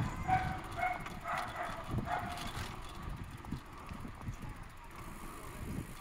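A handlebar-mounted chrome dome bicycle bell rung about four times in quick succession in the first two and a half seconds. The bicycle's rattle and tyre noise on the road run underneath.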